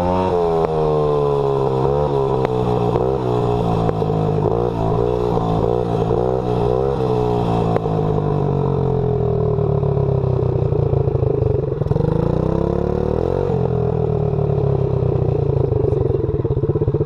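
Small single-cylinder dirt bike engine being ridden. Its revs swing up and down quickly over and over for the first half, then settle into a steadier drone with a brief drop and pick-up about twelve seconds in.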